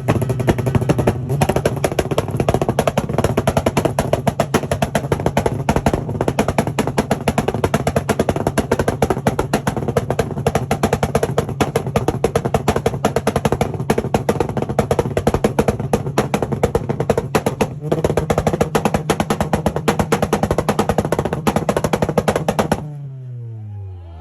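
Car engine held against its rev limiter, its note stuttering in a rapid, steady chatter of cuts for over twenty seconds. Near the end it is released and the revs fall away.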